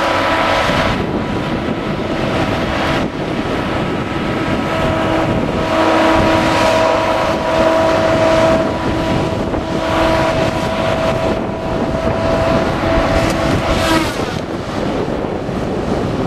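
Madill 2250 tracked harvester's diesel engine and hydraulics running while it works, a steady whine coming and going over the engine, with several brief surges in level.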